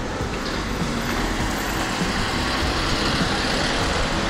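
Steady street traffic noise, a continuous hum and rumble of passing vehicles.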